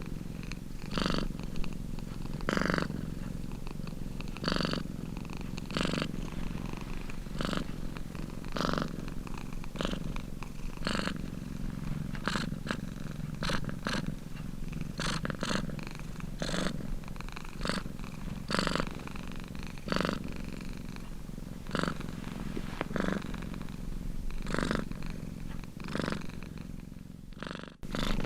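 Domestic cat purring steadily, swelling with each breath in and out about every second or two. The sound cuts out for an instant near the end.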